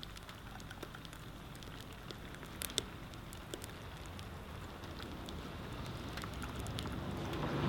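Wood fire crackling in a rocket stove, with scattered sharp pops over a steady low hum; the noise grows louder toward the end.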